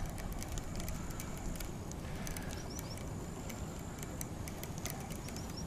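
A cricket trilling steadily and high over low outdoor background noise, with scattered faint clicks.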